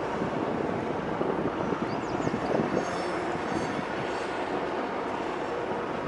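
BNSF mixed freight train rolling across a bridge: a steady rumble of wheels on rail, with a few faint high squeals in the middle.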